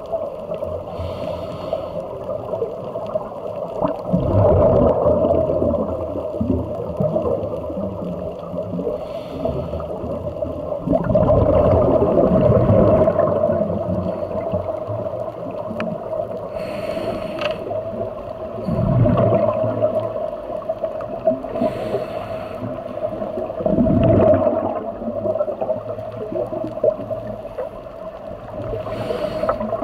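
Scuba diver breathing through a regulator, heard underwater through the camera's housing: a short hiss of each inhalation, followed a few seconds later by a loud low rumble of exhaled bubbles, in a slow cycle that repeats about four or five times. A steady hum runs underneath.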